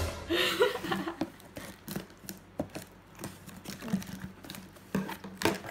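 Scissors cutting into a taped cardboard shipping box: irregular sharp snips and clicks with light crinkling of packing tape, after a short voice-like sound in the first second.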